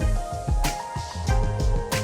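Background music with a steady beat: a strong bass line and a drum hit about every two-thirds of a second.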